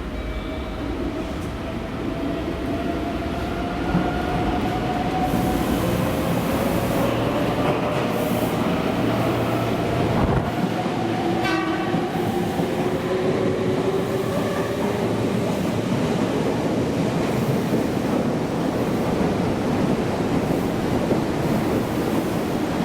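Meitetsu electric train running along the platform, with a steady rumble of wheels on rail and the whine of its traction motors climbing slowly in pitch several times over.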